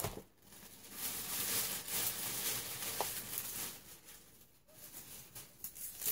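Rustling and crinkling of packaging being handled, in irregular stretches with short pauses.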